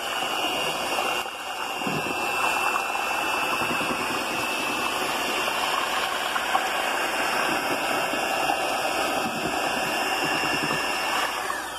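Electric hand mixer running steadily, its beaters churning soft mashed banana in a stainless steel stockpot, with a constant high motor whine. Near the end it is switched off and the whine falls as the motor spins down.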